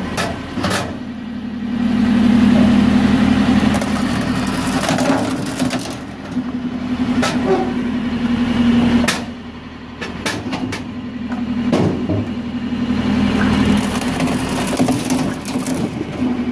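Firewood processor working: a steady machine hum that swells and eases every few seconds, with repeated sharp cracks and knocks of wood being cut and split.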